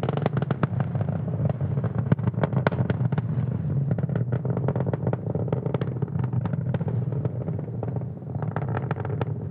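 Falcon 9 first stage's nine Merlin 1D engines heard through the rocket's onboard microphone: a steady low rumble thick with rapid crackling, in supersonic flight just before max Q.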